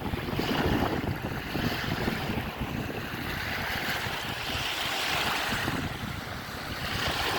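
Waves breaking and washing up the shore, a rushing hiss that swells about halfway through, with wind buffeting the microphone in a low rumble.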